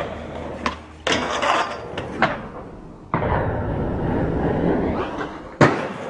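Skateboard sounds: urethane wheels rolling on concrete with sharp clacks of the board, then a long slide along a metal stair handrail ending in a loud landing slap about five and a half seconds in.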